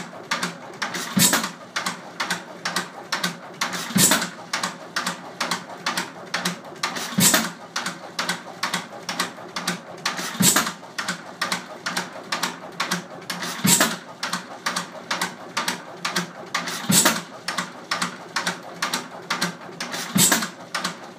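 United 2 HP hit-and-miss gas engine running with no load. A loud firing bang comes about every three seconds, seven times. In between, a rapid, even mechanical clicking goes on while the spinning flywheels carry the engine along without firing.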